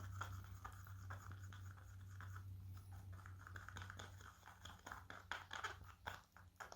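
Faint scraping and small clicks of casting resin being stirred and handled in a mixing cup while pigment is worked in, over a steady low hum.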